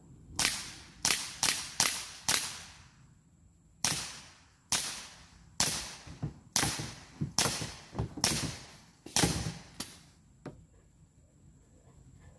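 Daisy CO2 BB pistol firing a string of about fourteen sharp shots. The first five come in quick succession over about two seconds. The rest follow at roughly one a second and end about ten seconds in.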